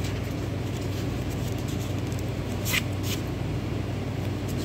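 Paper V60 coffee filter being folded along its seam, with two short crinkles about two and a half and three seconds in, over a steady low background hum.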